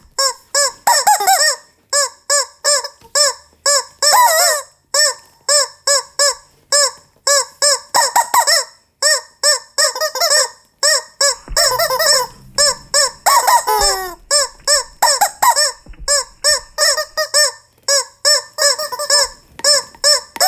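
Rubber chickens squeezed over and over in a quick, steady rhythm, a few squawks a second at a couple of different pitches, some of them bending in pitch.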